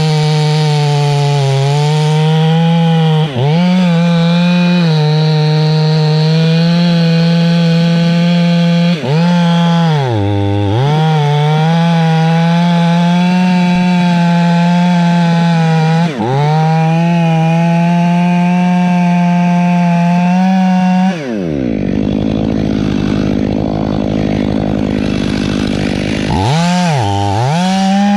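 Stihl two-stroke chainsaw cutting into a southern magnolia trunk at full throttle, its revs dipping briefly and picking up again four times. About three-quarters of the way through it drops to idle for about five seconds, then revs back up to full speed near the end.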